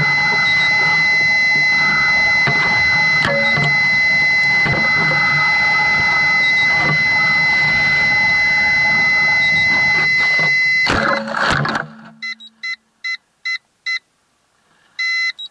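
Airflow rushing steadily over a descending high-power rocket, with a constant high electronic tone. About eleven seconds in come a few knocks and a clatter as it lands in grass. The rush stops, and the onboard electronics sound a run of short beeps and then one longer beep, the kind of beep-out a flight altimeter gives after landing.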